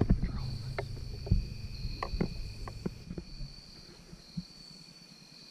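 Insects trilling steadily in the woods at two high, even pitches. Over them come scattered clicks and light knocks with a low rumble, the sounds of movement and handling close to the microphone, which die away about four seconds in.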